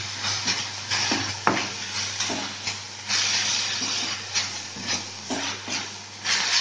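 Wooden spatula stirring and scraping drumstick leaves and grated coconut around a metal kadai, in repeated uneven strokes against the pan, over a light sizzle as the poriyal fries dry once its water has cooked off.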